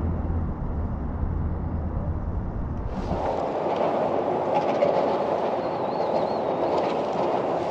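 Steady hum of road traffic crossing the concrete bridge overhead, heard from the water beneath it. It starts sharply about three seconds in, after a low rumble.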